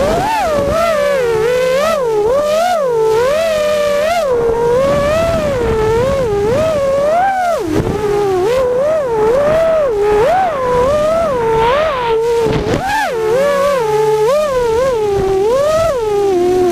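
Small FPV quadcopter's electric motors and propellers whining, heard from the onboard camera, the pitch rising and falling quickly and constantly with the throttle.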